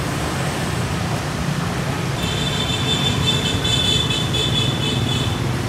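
Steady street traffic rumble. A high, fluttering tone sounds over it for about three seconds, starting about two seconds in.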